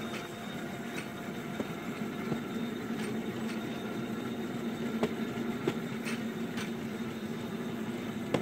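Electric motor of a battery-powered rail kart, a 300-watt motor driving one rail wheel, running with a steady hum as the kart rolls along the track, with occasional sharp clicks.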